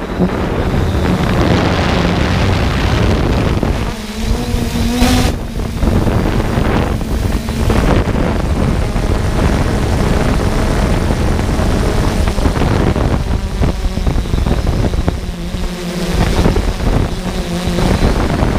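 3DR Solo quadcopter in flight heard from on board: the steady hum of its electric motors and propellers under heavy wind buffeting on the microphone, with the motor pitch shifting slightly as it manoeuvres.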